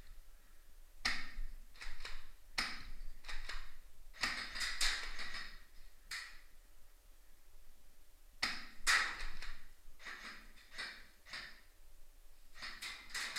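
Airsoft guns firing: a string of sharp clacks and knocks at irregular intervals, some followed by a short rustle.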